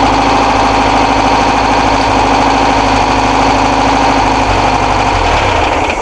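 VW T2 bus's air-cooled 1600 flat-four engine idling steadily on its first run after standing seven years, then stopping near the end.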